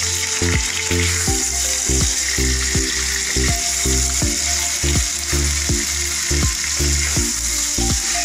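Chicken pieces and fried onions sizzling steadily in hot oil in a kadai, over background music with a steady beat and low bass notes.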